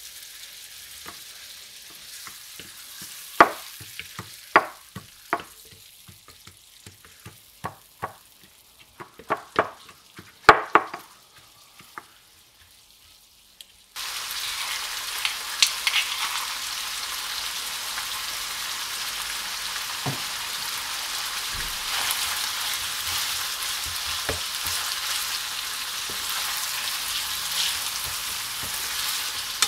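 A pestle strikes into a stone mortar of garlic cloves and ginger, a dozen or so sharp ringing knocks as they are crushed to paste. About halfway through this gives way to a steady sizzle of chicken pieces frying in oil in a pan, stirred with a wooden spoon.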